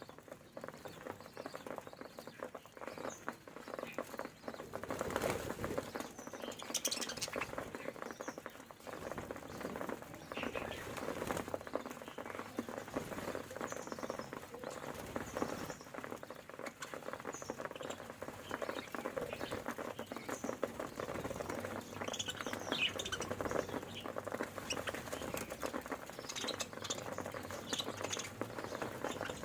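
Flock of budgerigars pecking and cracking grain on a tray: a dense, continuous run of small clicks, with short high chirps here and there, more of them in the second half.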